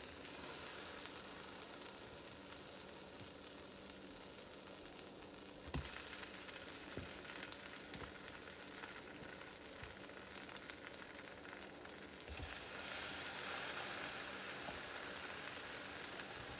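Egg-batter-dipped panettone slices frying in butter on a hot griddle, a steady sizzle. The sizzle grows louder twice, about six and about thirteen seconds in, each time just after a soft knock.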